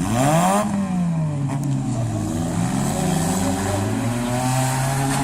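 Demolition derby car engines revving: one sharp rev right at the start that climbs and drops back, then the engines running and revving unevenly.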